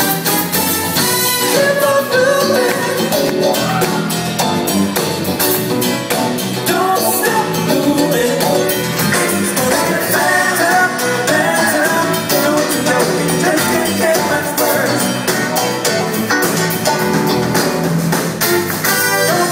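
A live band playing an upbeat song: drum kit, electric guitars and horns, with a lead singer over the top.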